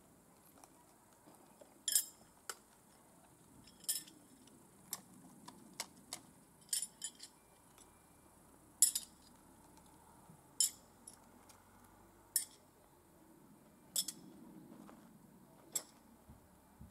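Metal throwing knives clinking against each other in the hand as they are pulled from a wooden target: about a dozen sharp clinks, a second or two apart.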